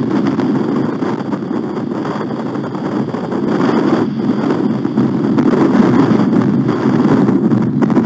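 Strong wind buffeting the nest camera's microphone: a steady low rushing that grows louder about halfway through.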